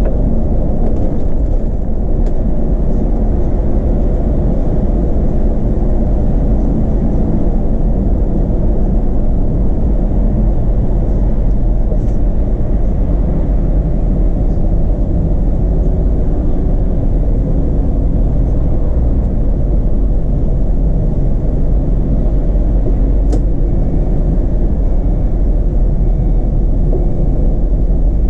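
Solaris Urbino 18 articulated city bus running, heard from the driver's cab: a steady low engine and road rumble, with a couple of faint clicks.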